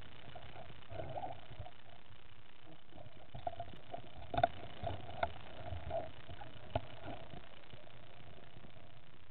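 Muffled underwater noise picked up by a camera, a steady hiss with a few sharp clicks and knocks scattered through the middle.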